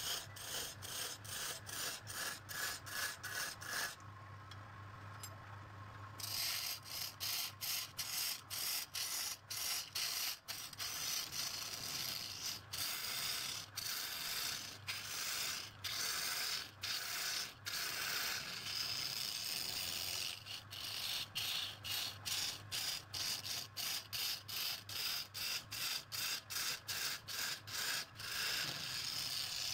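Wood being worked on a turning lathe: a tool scrapes the wood in quick, evenly repeated strokes, about three to four a second, over a steady low hum. The strokes stop for about two seconds a few seconds in, then carry on.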